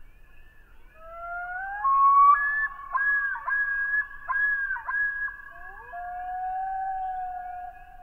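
Common loon calling: rising notes break into a run of repeated up-and-down notes, the pattern of the loon's yodel, then one long held note near the end, like its wail.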